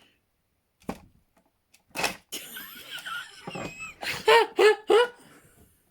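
A couple of sharp clicks, then high-pitched laughing or squealing: three short loud bursts close together near the end.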